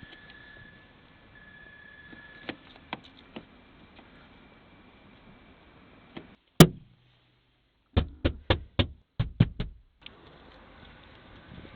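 Knocking: one loud single knock about halfway through, then a run of sharp knocks in two quick groups, four and then three.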